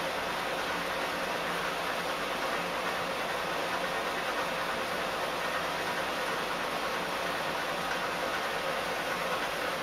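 Steady, even hiss-like noise with no distinct events.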